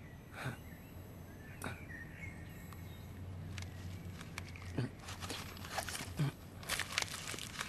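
Cigarette pack being handled: crinkly rustles and small clicks, thickest in the second half. Underneath is a steady low outdoor hum, with a few faint bird calls near the start.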